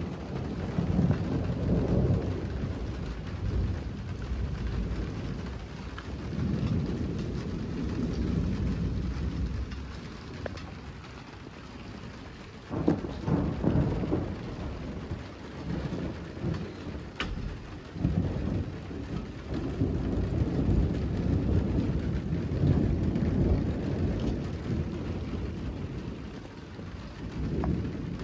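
Rain falling, with deep rolling rumbles of thunder that swell and fade several times. A fresh, sharper rumble starts suddenly about halfway through.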